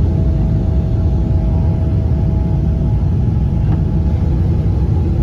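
Boeing 777-300ER cabin noise during the climb just after takeoff and gear retraction: a loud, steady, deep rumble of jet engines and airflow, with a faint steady hum above it.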